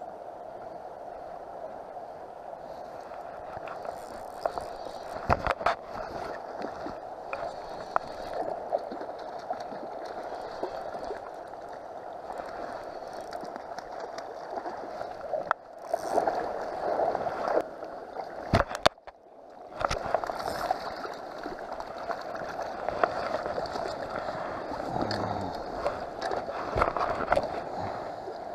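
River water flowing steadily over a shallow stony bed, with scattered clicks and knocks from handling near the microphone. The sound cuts out briefly twice just past the middle.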